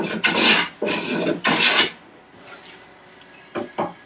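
Hand plane taking rasping, shaving strokes across a block of curly maple, a quick run of strokes over the first two seconds. Near the end come two short knocks as the plane is set down on the wooden workbench.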